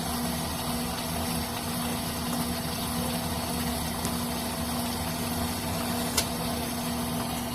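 Electrolux Turbo LTC10 washing machine running with a steady mechanical hum, and a single sharp click about six seconds in.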